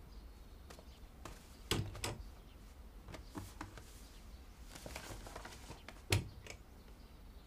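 Scattered light knocks and clicks of a low wooden cabinet being opened and rummaged in, with a louder pair of knocks about two seconds in and a single sharp knock about six seconds in, over a faint room hum.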